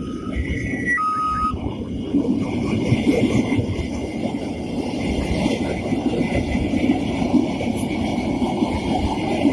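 Train rolling past, a steady rumble of wheels on rail. An alternating two-note signal cuts off about a second and a half in.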